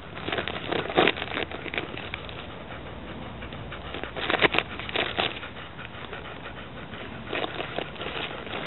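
Gift-wrapping paper crinkling and tearing in irregular bursts as a dog noses and pulls at a wrapped present, loudest about halfway through.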